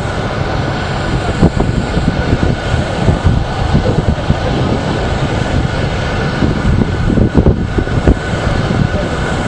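Loud, steady low rumbling noise with a faint steady high tone running through it.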